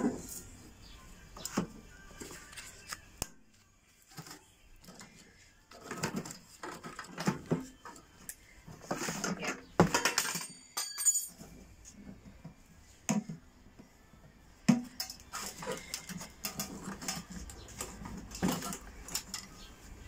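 Sheet-metal casing and plastic parts of a microwave oven being taken apart, knocking, clicking and rattling irregularly as they are handled, with a louder clatter about nine to ten seconds in.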